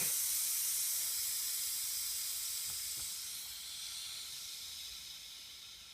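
The last of the compressed air in an air compressor's tank hissing out, a high hiss that steadily fades as the tank empties.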